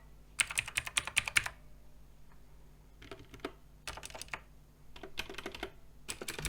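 Typing on a Redragon K568 TKL mechanical keyboard: several short bursts of rapid keystrokes with brief pauses between them.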